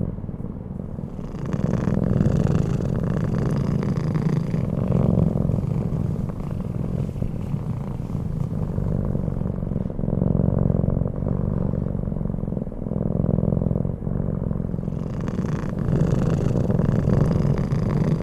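A sleeping cat snoring: a low rumble that swells and eases in slow cycles of a few seconds.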